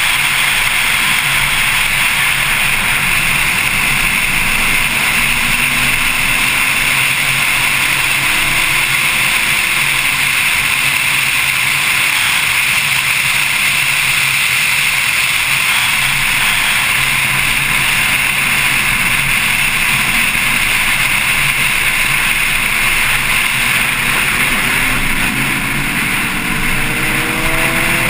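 Porsche 911 Carrera S at speed, heard through a camera on its front hood: a steady rush of wind and road noise, with the rear flat-six engine faintly audible. Near the end the engine's pitch rises as the car accelerates.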